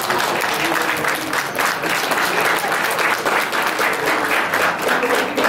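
Audience and judges applauding, many hands clapping together.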